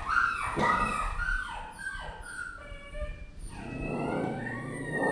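Recording of dogs crying, played through a laptop speaker: several high, wavering whines and howls that slide up and down in pitch and overlap.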